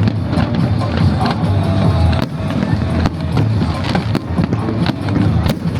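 Fireworks going off: a rapid scatter of sharp pops and crackles over a continuous low booming rumble, with music playing.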